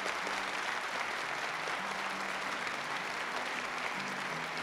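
Live concert audience applauding, a dense steady clapping.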